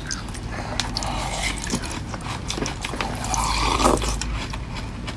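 Frozen napa cabbage being bitten and chewed: irregular crisp crunches and cracks of frozen leaves and ice.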